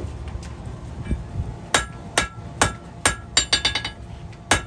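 Blacksmith's hammer striking hot steel on an anvil, the anvil ringing after each blow. After a moment of low rumble come four strong blows about half a second apart, then a quick run of lighter taps, and one more blow near the end.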